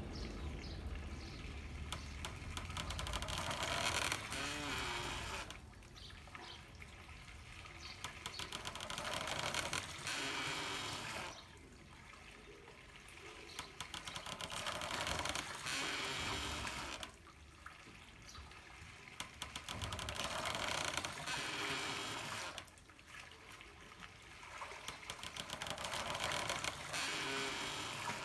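Water pouring and trickling through a handmade water-powered corn mill in a repeating cycle. Louder pouring spells of about three seconds alternate with quieter dribbling, about every five to six seconds.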